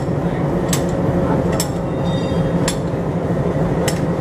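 Diesel locomotive engine idling with a steady low drone, with four sharp metallic clinks from the coupler and hose fittings being handled during coupling.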